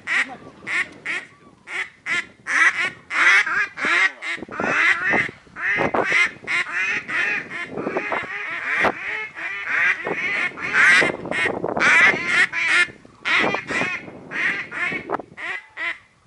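A flock of common cranes calling in flight, many birds trumpeting over one another in a dense, continuous chorus.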